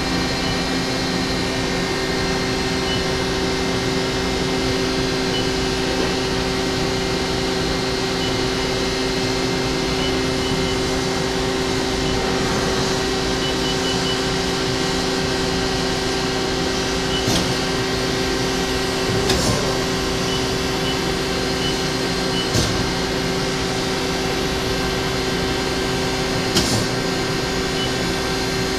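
Mori Seiki SL-150S CNC turning center running: a steady machine hum with several held tones, and a few short sharp clicks in the second half.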